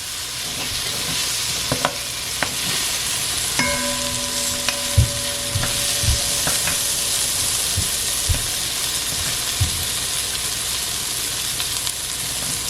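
Sliced okra slow-frying in oil in a pot on low heat, a steady sizzle, with a spoon stirring and knocking against the pot a few times and one brief metallic ring near the middle.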